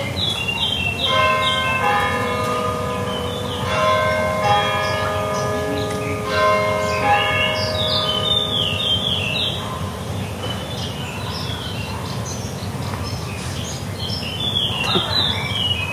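A church bell strikes three times, about two and a half seconds apart, each stroke ringing on and fading. A bird sings short runs of falling chirps three times over a steady low background hum.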